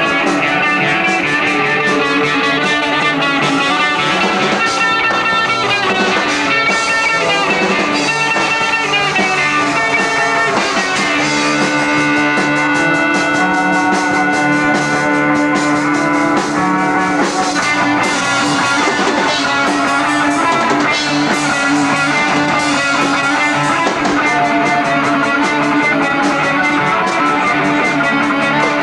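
Rock band playing live, guitars over a drum kit, loud and steady throughout.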